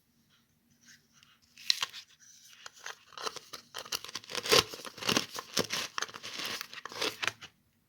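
Sand and pebbles being handled, a gritty crunching and scraping with sharp clicks. It starts with a single click a little under two seconds in, grows dense from about three seconds, and stops shortly before the end.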